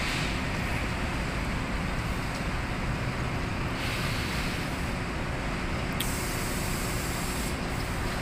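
Steady rumble and hiss of cement-plant machinery, with an inclined belt conveyor running and a faint steady hum; a single sharp click about six seconds in.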